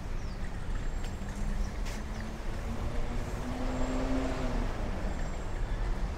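City street ambience: a steady low rumble of traffic, with an engine hum that swells and fades about four seconds in.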